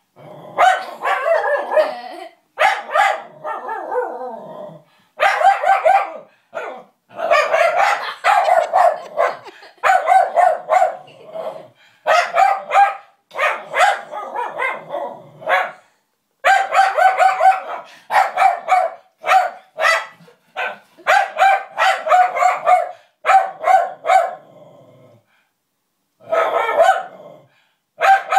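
A pet dog barking repeatedly in quick runs at a monkey puppet she dislikes, with a short break about 25 seconds in before the barking starts again.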